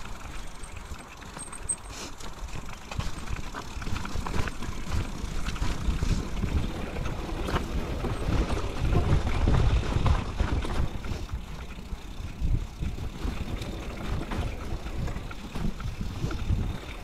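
Mountain bike rolling over a dirt singletrack: tyre rumble with clicks and rattles from the bike over bumps. It gets louder about halfway through.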